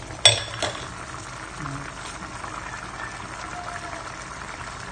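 Tinapa and tomato broth boiling in a pan, a steady bubbling with fine crackle. A sharp click about a quarter second in is the loudest sound, with a smaller click just after.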